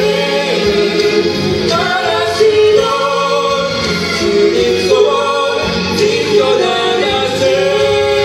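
A man and a woman singing a duet into handheld microphones, amplified in a hall, their voices moving together on long held notes over a music accompaniment.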